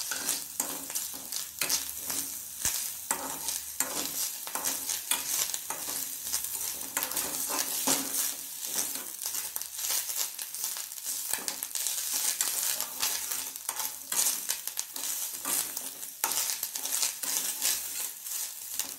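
Black nightshade leaves and grated coconut sizzling in ghee in a kadai while a metal spatula stirs them, scraping and clicking against the pan. The greens and coconut are being sautéed until they wilt.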